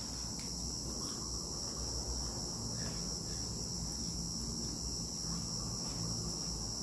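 Steady, unbroken high-pitched insect chorus, with a faint low hum beneath it.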